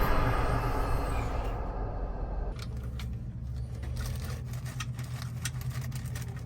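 Scattered sharp clicks and light scrapes, like tools and metal parts being handled, over a steady low hum; a fading noise in the first couple of seconds cuts off sharply.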